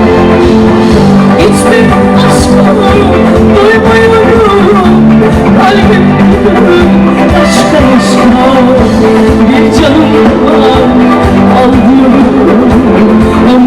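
Loud live band music with sustained melodic lines, a vocal part possibly among them.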